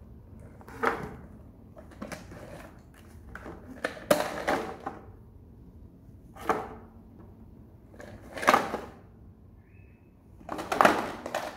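A series of about six short scraping and knocking sounds of plastic toys and a plastic stool being handled and pushed on a tile floor, the longest near the end.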